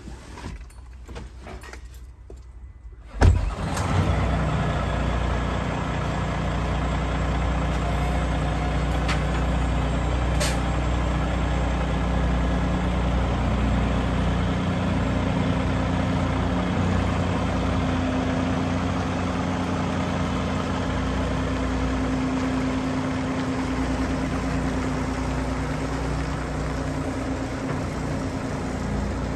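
Kenworth semi-truck's diesel engine starting about three seconds in with a sudden loud catch, then running steadily.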